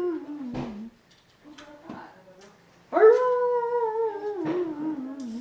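A dog howling: a long howl trails off in the first second, and a second long howl starts about three seconds in, sliding down in pitch.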